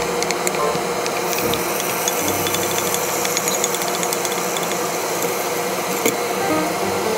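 Eggplant, minced pork and chilli sizzling and bubbling in a pot, a steady crackling hiss with scattered small clicks as a wooden spatula stirs the dish.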